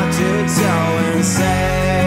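Rock ballad music: a full band with a lead line sliding and bending between notes, likely the guitar, over cymbal splashes. A deep bass note comes in about one and a half seconds in.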